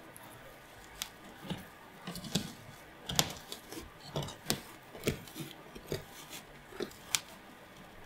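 Sprouted wheat being pulled apart by hand: the matted roots tear with an irregular run of crisp snaps and crackles, about fifteen in all, starting about a second in.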